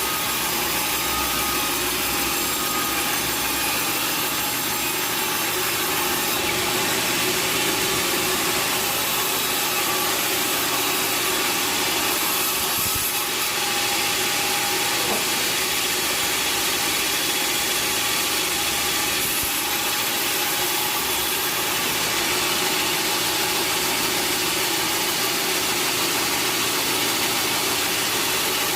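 Sawmill machinery running steadily, an engine-driven saw giving a continuous even noise with a faint steady whine.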